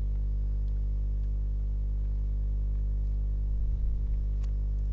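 Steady low electrical hum, mains hum with a row of evenly spaced overtones, holding at one level, with a few faint low bumps about four seconds in.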